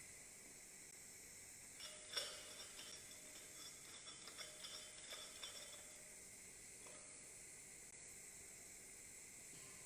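Faint, steady hiss of a TIG arc welding a duplex stainless pipe root. A scatter of light clicks and taps comes about two to five seconds in.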